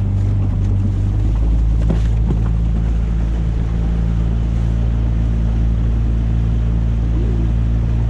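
Outboard motor of an aluminium jon boat running steadily at speed, with the rush of water and wind along the hull and a couple of knocks about two seconds in.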